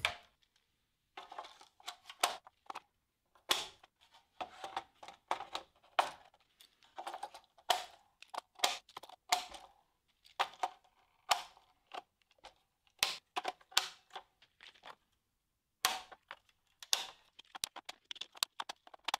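Electrical control modules such as relays being snapped onto DIN mounting rails in a CNC control cabinet. It is a run of sharp, irregularly spaced plastic clicks and snaps, some with a brief ring, with short pauses between groups.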